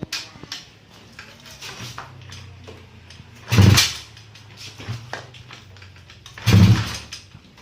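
Honda Kharisma's single-cylinder four-stroke engine, built out to 200cc, running for the first time and not yet tuned. It idles with a steady low hum, broken by two short, loud throttle blips about three seconds apart.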